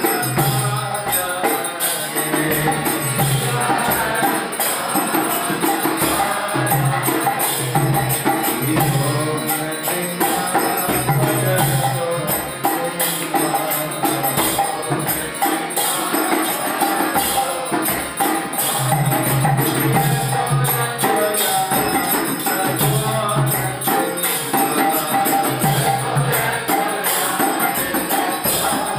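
Devotional arti kirtan: metal hand cymbals ringing in a steady rhythm over regular drum beats, with voices chanting.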